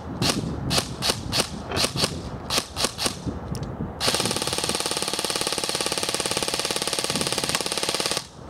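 Ares Amoeba 13" Modular Rail electric airsoft gun (AEG), run on an 11.1 V LiPo, firing single shots at about two or three a second, then about four seconds in switching to one full-auto burst of about four seconds that cuts off suddenly.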